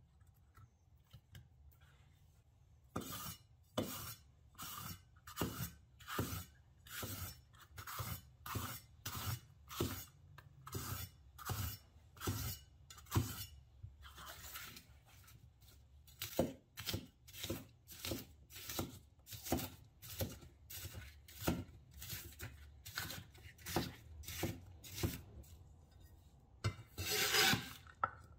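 Cleaver chopping green bell pepper on a wooden cutting board, its blade knocking through the flesh onto the wood at a steady rate of about two strokes a second, with a short pause about halfway. Near the end the flat of the blade scrapes across the board as the diced pepper is scooped up.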